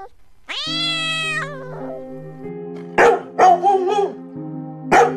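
A cat meows once, a long call falling in pitch. Background music follows, with a quick run of short dog barks about three seconds in and one more bark near the end.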